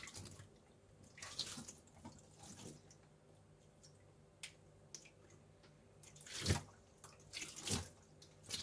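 Faint, scattered drips and small splashes of water in a dishwasher's stainless-steel tub and filter sump, just after boiling water has been poured in, with a few soft knocks of a plastic container being handled.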